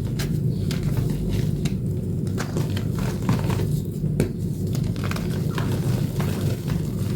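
Reformed blue chalk, made with corn starch paste, being crushed and crumbled: irregular crisp crunches and crackles over a steady low hum.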